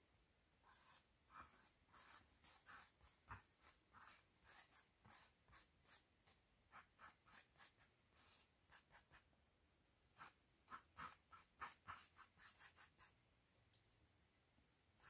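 Faint scratching strokes of a drawing tool sketching on stretched canvas, two or three strokes a second, with a pause of about a second partway through. The strokes stop a couple of seconds before the end.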